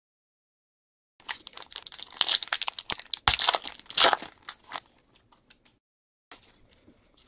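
Foil football-card pack being torn open by hand: dense crinkling and tearing for about four seconds, starting about a second in, then a shorter, fainter rustle near the end as the cards are handled.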